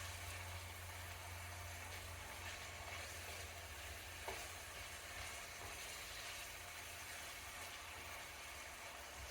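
Food sizzling in a frying pan: a steady, faint hiss, with a low hum underneath and a single light knock about four seconds in.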